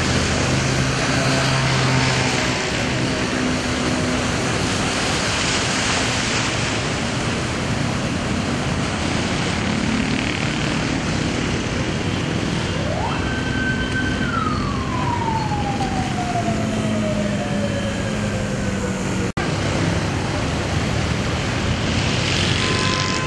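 Steady traffic noise of vehicles moving through a flooded street. About 13 seconds in, a single siren wail rises quickly, holds briefly, then falls slowly away over about five seconds. The sound cuts out for an instant near the end.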